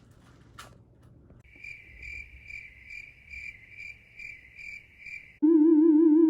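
Crickets chirping in a steady high trill that pulses about twice a second. Near the end a much louder wavering electronic tone cuts in, wobbling in pitch and bending upward as it stops.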